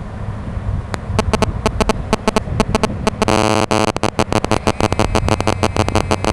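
Cell phone radio interference picked up by the camera's audio: a loud buzzing static of rapid pulses that starts about a second in, with a brief unbroken burst around the middle, over low wind rumble on the microphone.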